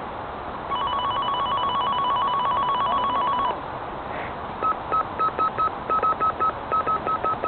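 Electronic signal tones: a fast trilling two-tone ring for about three seconds, then after a short gap a run of short, evenly pitched beeps in uneven groups.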